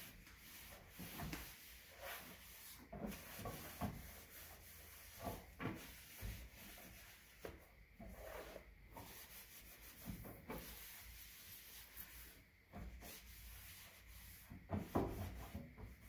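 A cloth wiping the inside of a microwave oven: a series of short, irregular, faint rubbing strokes against the cavity walls and ceiling.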